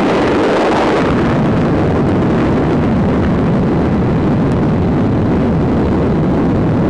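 Nuclear test explosion heard as a loud, continuous low rumble, dense and steady, without sharp cracks or a rhythm.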